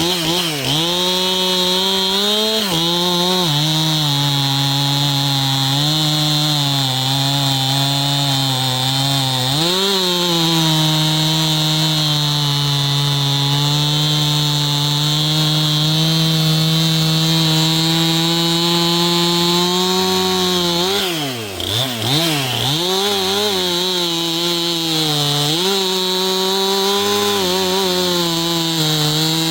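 Stihl MS 271 Farm Boss chainsaw, a 50 cc two-stroke, cutting through a log under load. The engine note holds steady, with brief drops in revs about ten seconds in and again about two-thirds of the way through.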